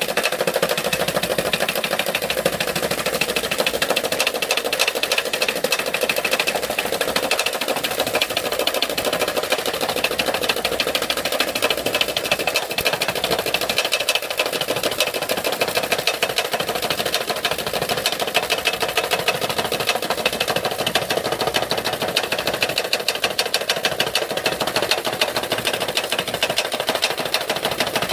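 iRobot Looj gutter-cleaning robot running in a metal gutter: its motors and spinning auger make a steady, rapid mechanical clatter.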